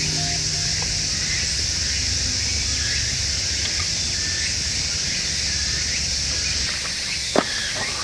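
Outdoor ambience dominated by a steady high buzz of insects, with a few faint bird chirps and a low rumble that drops away near the end. A single sharp knock sounds shortly before the end.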